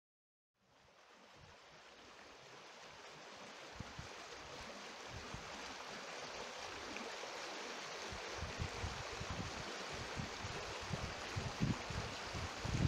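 Outdoor wind noise: a steady rushing hiss that fades in over the first second or two and slowly grows louder, with low buffets of wind on the microphone coming more often toward the end.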